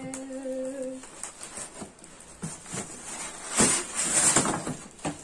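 Plastic wrapping crinkling and rustling as an induction cooktop is lifted out of its cardboard box, loudest a little past halfway. It opens with a person humming a held note for about a second.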